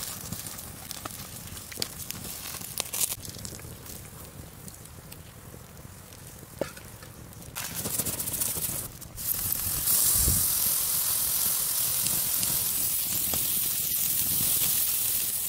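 Wood fire crackling with scattered sharp pops, then from about ten seconds in a loud, steady hiss of meat sizzling on a hot grill grate.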